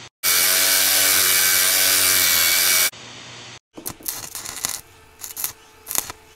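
A power tool cutting steel rebar runs loud and steady at one pitch with a strong hiss for under three seconds, then stops. About a second later comes a run of sharp metallic clinks and knocks.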